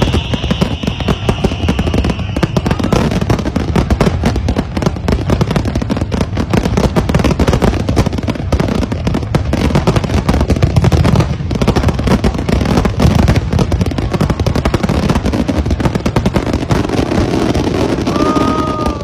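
Dense fireworks barrage: a continuous rapid run of bangs and crackling from many shells bursting at once. A high whistle fades out in the first few seconds.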